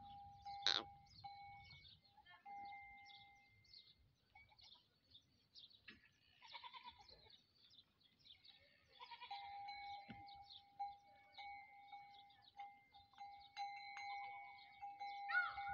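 Faint farmyard sounds: a goat bleats briefly a couple of times, over scattered short high chirps and a thin steady high tone that comes and goes.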